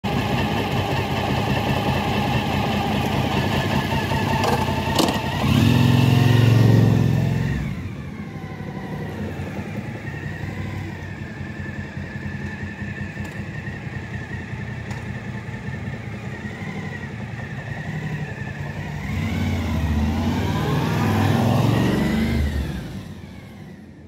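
Suzuki DL1000 V-Strom's V-twin engine running, revving up about five seconds in, dropping back, then louder again from about nineteen seconds before easing off near the end. A thin, high, wavering tone runs over it: the harmonic resonance the owner blames on sintered brake pads.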